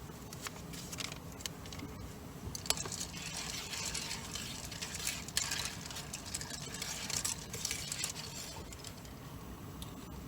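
Soup cooking in a pan: a soft, irregular patter with louder bursts in the middle.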